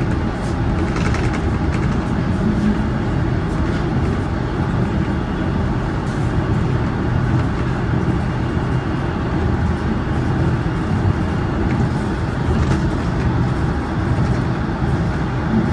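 Toronto Rocket subway train running steadily, heard from inside the car: an even rumble of wheels on rail and traction motors with no break or sudden event.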